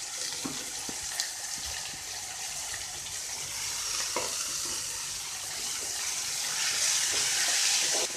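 Hot oil sizzling in a steel kadai as handfuls of fresh drumstick leaves are dropped in, with a few light knocks; the sizzle grows louder near the end as the leaves start being turned in the pan.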